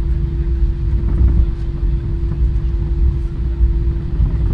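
Cabin noise inside an Airbus A320-232 taxiing: a steady low rumble from its IAE V2500 engines and the rolling airframe, with a constant even hum over it.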